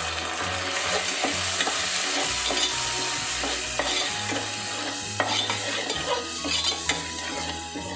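Ginger-garlic paste, turmeric and chilli powder sizzling in hot oil in an aluminium pot as a steel ladle stirs it, with a steady hiss and frequent scrapes and clicks of the ladle against the pot.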